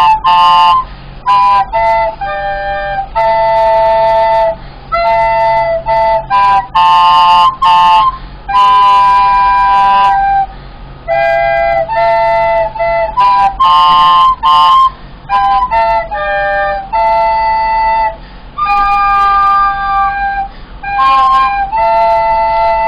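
Two plastic soprano recorders played together as a duet, a simple tune in two parts of short, separately tongued notes with brief breaks between phrases.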